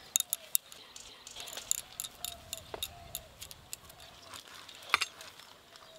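Scattered light clicks and ticks of bangles and fingers as hands roll soft rice-coated dough balls, the sharpest click about five seconds in. Faint short animal calls repeat behind them.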